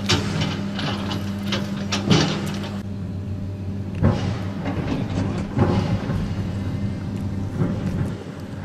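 An engine running with a steady low hum, under irregular knocks and rustles.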